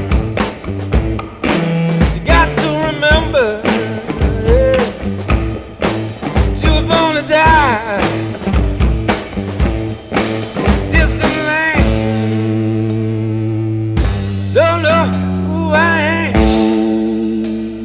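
Rock music with drums and guitar. About two-thirds of the way through, the drums stop for a couple of seconds under held chords, then come back in.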